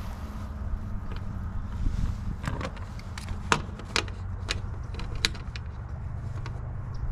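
A handful of sharp clicks and taps as a small spirit level and a new cam cleat are handled against the sailboat's mast, over a steady low hum.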